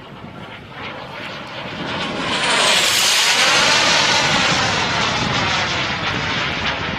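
Turbine engine of a radio-controlled model jet flying past at high speed. Its jet noise builds to a peak about three seconds in, then slowly fades as it moves away.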